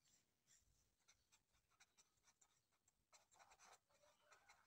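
Faint scratching of a pen writing on lined paper, a run of short strokes that is densest about three seconds in.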